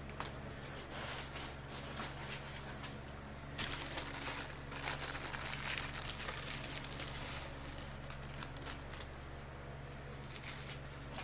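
Small LEGO plastic pieces clattering and rattling as a crinkling plastic parts bag is handled and emptied, in clusters of quick clicks that are loudest from about four to seven seconds in.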